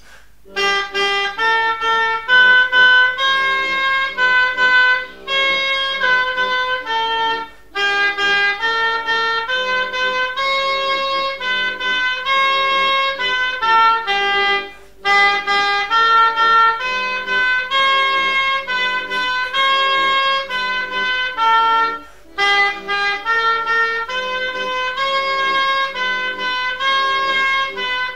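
Oboe playing a melody note by note in phrases, with brief pauses about every seven seconds.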